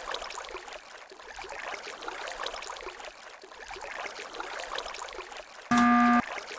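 A faint, even noisy hiss, then about two-thirds of the way through a loud electronic beep that starts and stops sharply, steady in pitch and about half a second long.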